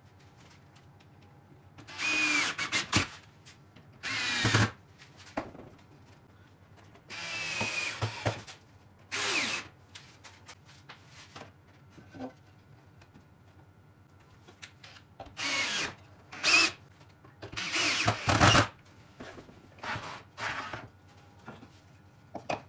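Cordless drill run in a series of short bursts, each a second or less, its pitch rising and falling as it speeds up and slows between quiet gaps.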